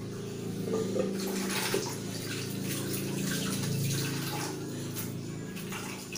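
Kitchen tap running into a tiled sink, the water splashing as hands are rinsed under it.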